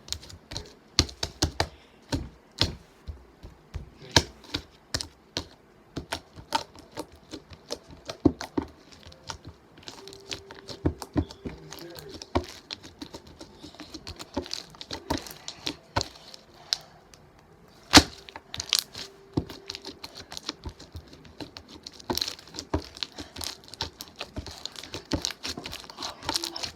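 Slime being squeezed and worked in the hands, making irregular sharp clicking and crackling pops, often several a second, with one louder crack about eighteen seconds in.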